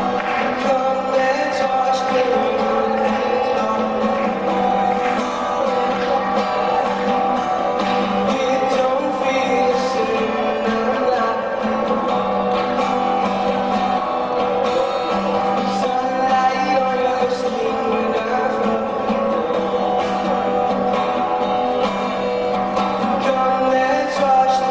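Background music: a song with guitar and singing, going on steadily.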